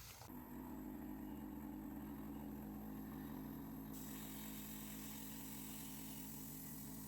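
An engine running steadily at constant speed, a low even hum with no change in pitch.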